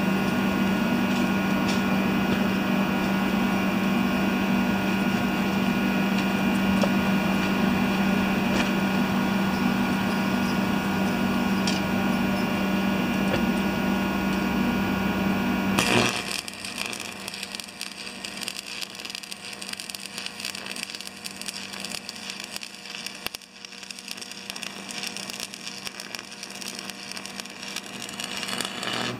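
A loud steady machine hum with a hiss over it cuts off abruptly about halfway through. It gives way to the quieter, fast irregular crackle of a stick-welding arc as the electrode burns against the steel.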